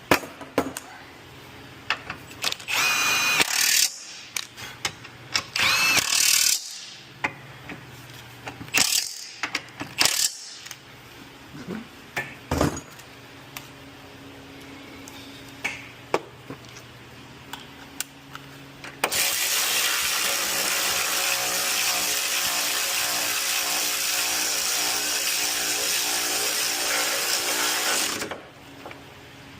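Power ratchet driving a control-arm bolt in: two short whining bursts early on, then one long run of about nine seconds that stops near the end, with sharp metal tool clinks in between. The ratchet does not bring the bolt fully tight.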